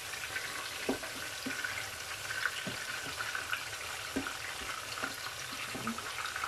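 Pieces of sea bream frying in a pan of oil and cooking juices: a steady sizzle with a few scattered pops and crackles.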